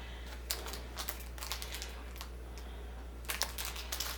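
Scattered light clicks and rustling from small screws and lock parts being handled, growing busier near the end, over a steady low hum.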